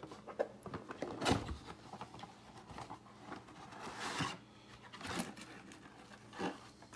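Hands unwrapping and opening a Topps Chrome trading card box: plastic wrap and cardboard tearing, rustling and scraping in several short bursts.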